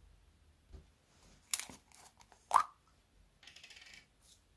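Plastic glue bottle handled and squeezed: two sharp plastic clicks, the second and louder about two and a half seconds in, then a short crackly hiss.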